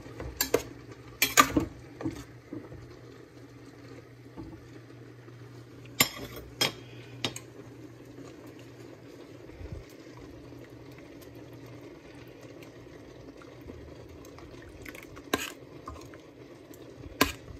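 Sauce simmering in a wide metal pan with a low, steady bubbling, broken a few times by a metal ladle clinking against the pan.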